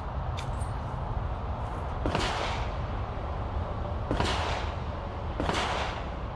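Three pistol shots at a shooting range, spaced roughly one and a half to two seconds apart, each with a short ringing echo after the crack.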